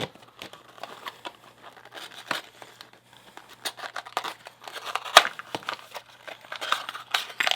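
Packaging crinkling and tearing in irregular rustles and small clicks as a brass padlock is unwrapped, with the loudest rustles about five seconds in and near the end.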